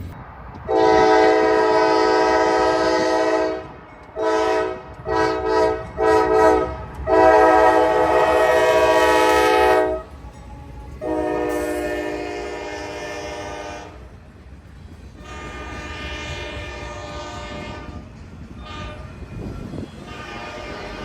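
Train horn sounded as a horn show. A long blast comes first, then a quick run of short toots and another long blast. Further long blasts follow, each fainter than the last, with short toots near the end, over a steady low rumble.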